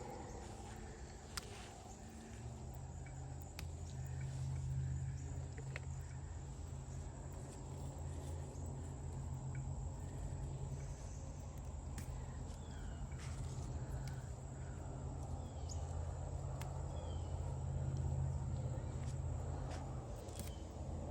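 Outdoor background with a steady low hum that comes up about two seconds in, a few short bird chirps and faint clicks over it.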